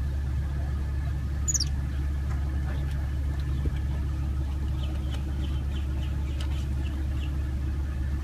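Steady low rumble of a car's cabin, with a young white-faced capuchin giving one high falling squeak about a second and a half in and then a run of short high chirps, about three a second, in the second half.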